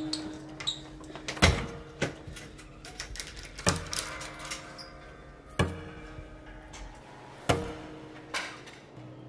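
Door lock and lever handle being worked: heavy metal clunks about every two seconds, each ringing briefly, with lighter clicks and rattles between.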